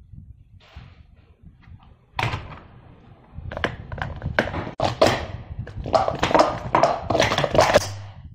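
Speed Stacks plastic sport-stacking cups being rapidly stacked up and down on a timing mat: about two seconds in, a fast, dense run of hollow plastic clacks and knocks starts and lasts about six seconds.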